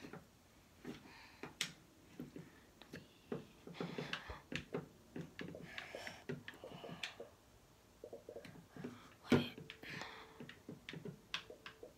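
Faint, irregular clicks and taps of a handheld phone being handled and moved about.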